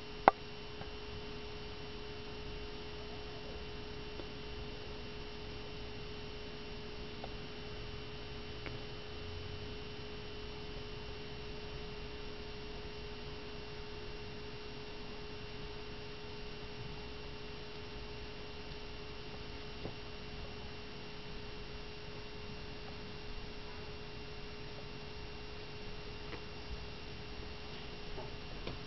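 Steady electrical hum: a few even, unchanging tones over a faint hiss, with one sharp click just after the start.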